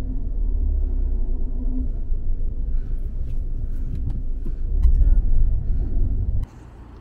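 Steady low road rumble inside a moving car's cabin, with a few light clicks partway through. The rumble cuts off abruptly about six and a half seconds in.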